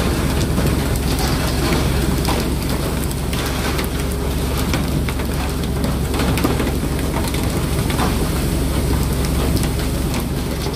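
Steady low rumble of a fishing boat's engine under a constant hiss of water, with many small irregular knocks and clicks.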